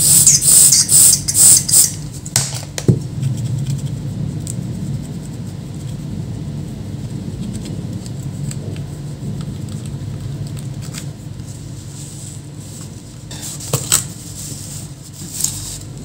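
Aerosol spray cleaner sprayed onto a laptop motherboard in several short hissing spurts near the start, with a steady low hum underneath.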